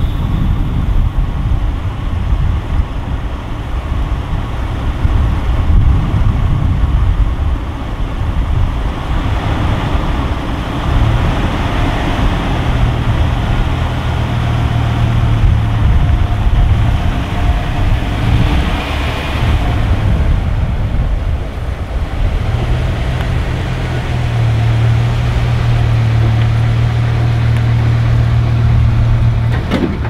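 Heavy trucks running during a tow start: one truck pulling the 1984 Peterbilt 362 cabover to turn over its Caterpillar 3406B diesel, which has a bad starter. A steady engine note holds from about 11 to 17 seconds in and again through the last seven seconds.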